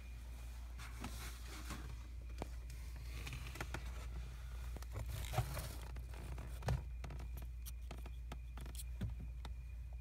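Hands handling a car's ignition wiring harness and its plastic multi-pin connectors: scattered small clicks and rustling scrapes, with a sharper click about five and a half seconds in and another near seven seconds. A steady low hum lies under it all.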